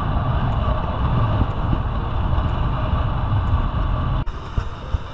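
Wind rushing over the microphone, mixed with tyre and road noise from a bicycle rolling along a paved road. It eases off suddenly about four seconds in.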